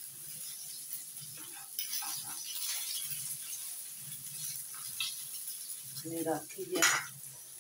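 A person's voice briefly, about six seconds in, over a low background murmur and a few faint clicks.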